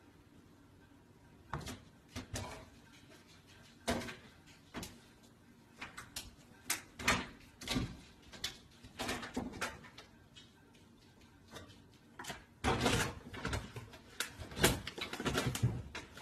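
Wooden kitchen cabinet door knocking and rattling as a cat hangs from it and scrabbles against the cabinet and microwave: irregular knocks and scrapes starting about a second and a half in, coming thicker near the end.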